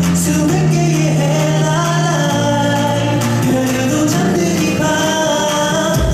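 K-pop backing track with male group vocals sung over it, heard over the venue's PA system. The bass and beat drop out for a lighter stretch and come back in right at the end.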